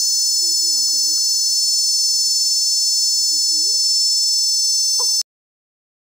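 Cicadas singing in a steady, high-pitched continuous drone that cuts off suddenly about five seconds in.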